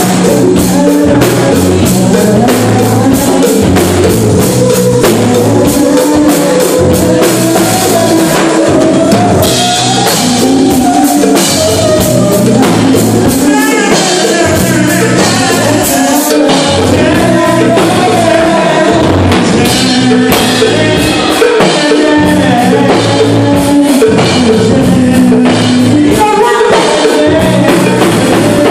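Loud live music: a singer over a rock-style band with a steady drum beat.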